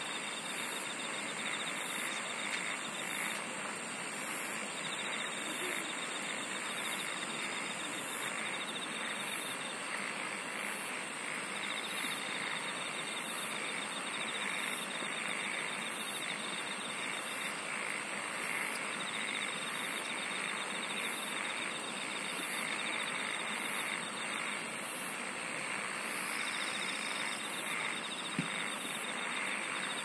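A chorus of singing insects: a steady high buzz, high chirps repeating about once a second, and a lower trill that comes in bouts of a few seconds with short gaps between them.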